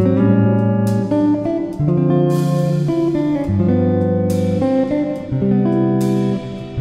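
Background music: guitar playing chords that change every second and a half to two seconds.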